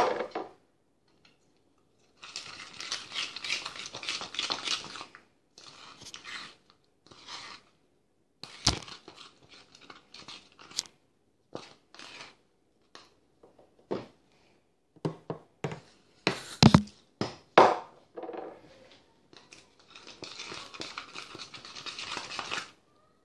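Freshly activated homemade slime being stirred in a plastic tub. Two stretches of scraping, crackling mixing come a couple of seconds in and near the end, with scattered clicks and knocks of the utensil and tub in between.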